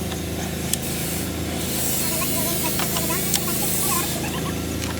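A spray hissing for about two and a half seconds, starting about a second and a half in, over a steady low machine hum, with a few sharp clicks.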